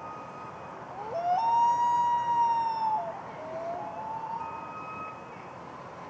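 Male common loon wailing to its mate on the nest. The call rises steeply about a second in, holds one high note for nearly two seconds and falls away, and is followed by a lower note that rises again.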